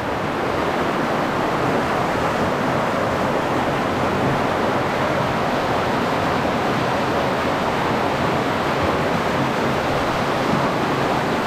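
Steady rush of falling water from a tiered mountain waterfall, an even unbroken roar with no change in level.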